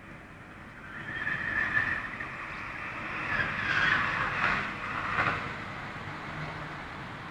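A motor vehicle passing on the road. Its sound swells about a second in, peaks around the middle and eases off, with a high whine heard about a second in.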